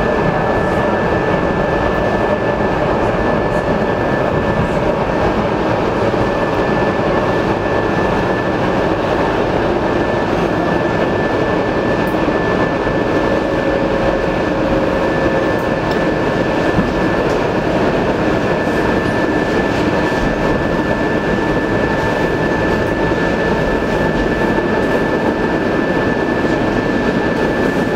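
Steady running noise inside the passenger car of an ET2M electric multiple unit travelling at speed: wheels on rails with a constant high whine over it.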